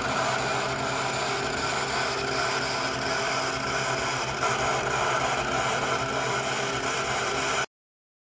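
Vertical CNC turning-and-milling machine working the face of a large metal disc with its milling spindle. It makes a steady machine sound, a low hum under several higher constant tones, that cuts off suddenly near the end.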